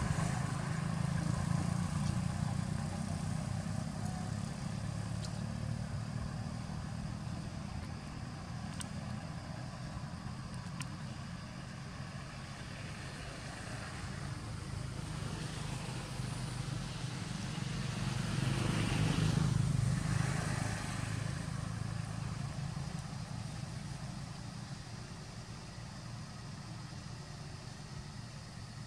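A motor vehicle engine hums steadily. It grows louder and then fades away about two-thirds of the way in, as if one is passing.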